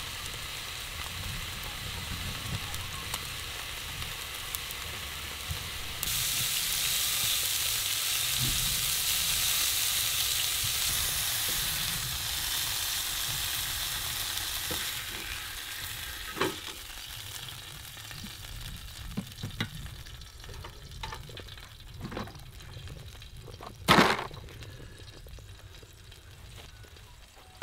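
Steaks sizzling in a non-stick frying pan on a portable camp gas stove. The sizzle grows louder about six seconds in, then dies away as the meat is lifted out. Tongs click and knock against the pan and plate, with one sharp knock near the end.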